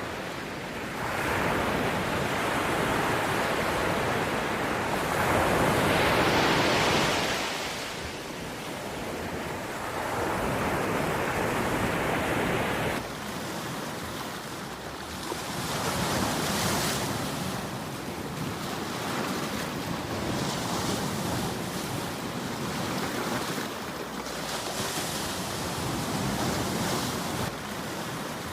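Sea waves breaking and washing over a rocky shore, one surge after another, with a loud crash about six seconds in and smaller breakers after it. Wind noise on the microphone runs under the surf.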